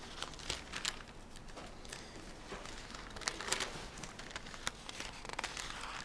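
Thin Bible pages rustling and crinkling as they are turned, a run of soft, irregular crackles.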